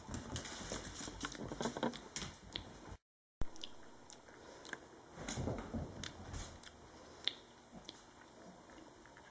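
Two small dogs play-fighting: mouthing and biting at each other, with scuffling and sharp clicks. The sound drops out completely for a moment about three seconds in.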